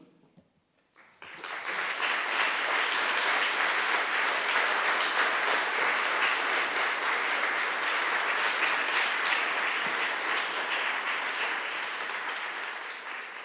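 Audience applauding: after about a second of quiet, clapping swells quickly, holds steady, and begins to fade near the end.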